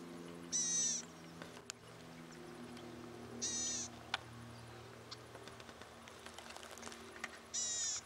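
Golden-headed cisticola singing: a short, high, rasping buzz given three times about three seconds apart, each followed by a single sharp note.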